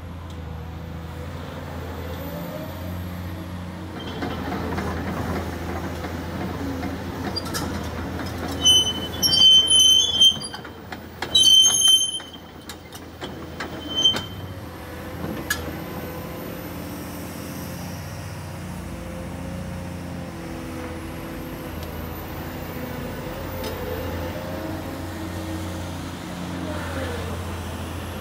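Caterpillar 345D crawler excavator's diesel engine running steadily as the hydraulics work the boom and bucket, with a whine that rises and falls now and then. About a third of the way in, several loud, short, high-pitched squeals over a few seconds.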